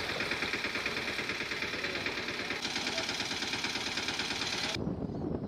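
An engine running steadily with a fast, even pulse, cutting off abruptly near the end and leaving a low outdoor rumble.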